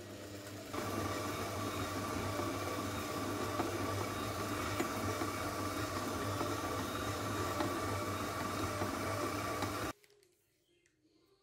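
Kenwood stand mixer motor running with its dough hook working flour into a crumbly dough. It jumps up in speed a little under a second in as the speed dial is turned, then runs steadily with a low hum and a high tone. It cuts off sharply near the end, leaving near silence.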